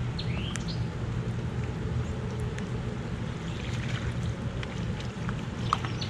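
Steady low rumble of river water flowing below a dam, with a short rising chirp about half a second in.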